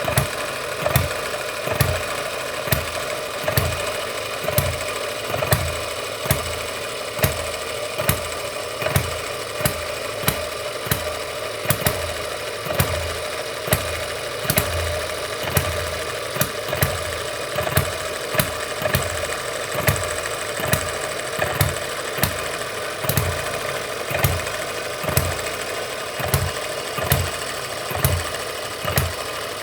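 M91 Microcosm miniature hit-and-miss gas engine, running on lighter fuel, firing with a sharp pop about once a second at uneven intervals as it coasts between power strokes, over a steady mechanical clatter.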